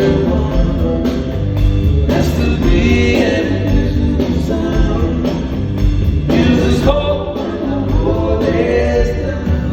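Live rock band playing through a venue's amplified sound system, with singing over a steady bass line.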